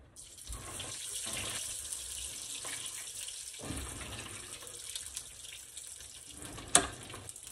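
A dough turnover (pastelito) frying in hot oil in a frying pan: a dense sizzle that starts suddenly as it goes into the oil and keeps on. A single sharp click about seven seconds in.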